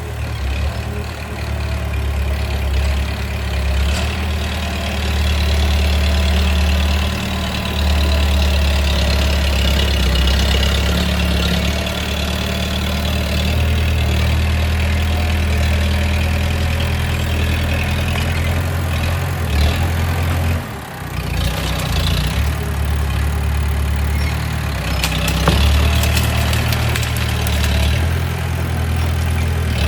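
Bulldozer's diesel engine running, its pitch shifting now and then as the revs change, with a brief drop in level about two-thirds of the way through.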